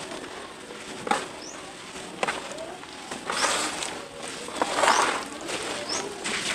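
Red dirt crumbled by hand and pouring back into a tub of muddy water: a gritty crumbling and pattering with a few sharp clicks, loudest in two stretches about three and five seconds in.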